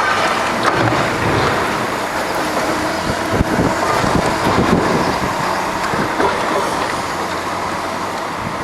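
Demolition work on a factory: heavy machinery running with a constant irregular crunching and clattering.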